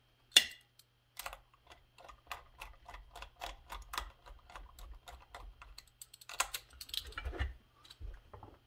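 A screwdriver clicking against metal and plastic as an anti-vibration mount is worked into a McCulloch chainsaw's plastic handle: one sharp click just after the start, then a run of light clicks about three or four a second. Near the end, the plastic handle assembly rattles as it is handled.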